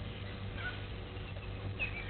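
Outdoor ambience with a few faint, short bird chirps, one about half a second in and another near the end, over a steady low hum.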